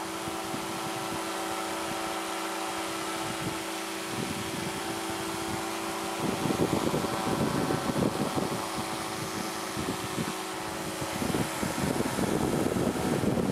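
Powered parachute's engine and propeller running steadily in flight, a constant even tone under a noisy hiss. From about six seconds in, wind buffets the microphone in irregular gusts.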